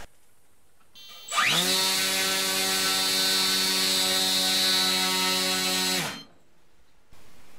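Brushless RC motor and propeller on a thrust stand, run up at high throttle: about a second in it spins up with a fast rising whine, holds a steady high-pitched whine with a buzzing prop for about four and a half seconds, then cuts out and stops quickly.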